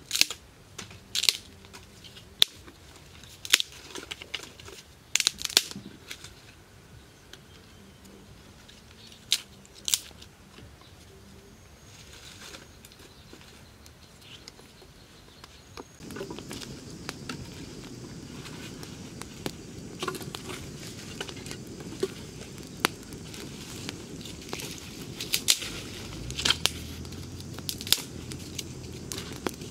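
Dry branches and twigs being snapped and broken by hand: a string of sharp cracks in the first ten seconds. From about sixteen seconds in, a wood campfire burns with a steady crackle and scattered sharp pops.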